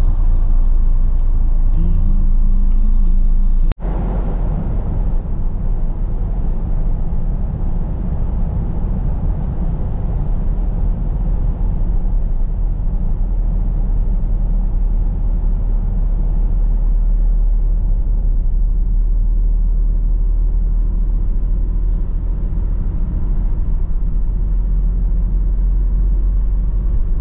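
Steady low road and engine rumble inside a moving vehicle's cabin, with a brief sharp drop-out about four seconds in.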